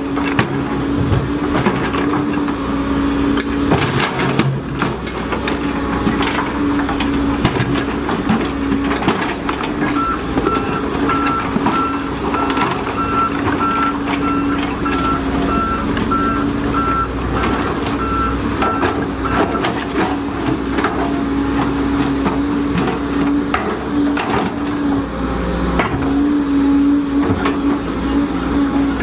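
Volvo EC210D L excavator's diesel engine running steadily at working revs, with frequent sharp knocks and clatter. From about ten seconds in, its travel alarm beeps repeatedly for roughly ten seconds, then stops.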